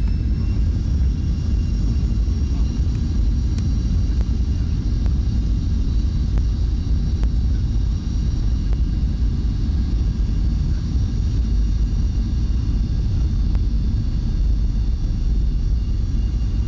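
Jet airliner engines at high thrust, heard from inside the cabin on the takeoff roll: a heavy, steady rumble with a high fan whine held at a steady pitch.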